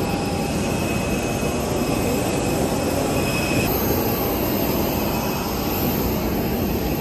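Steady noise of jet aircraft engines running, with a few faint high steady whines in it. The sound changes abruptly about three and a half seconds in.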